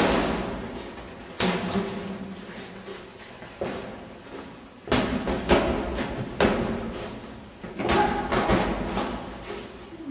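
Boxing gloves landing punches in sparring: about eight sharp thuds at an irregular pace, each with a short echo off the hard walls of a large gym.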